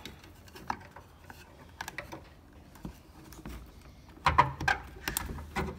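Small plastic clicks and rubbing as a third brake light's wiring harness and connector plug are worked loose by hand, getting louder and busier about four seconds in.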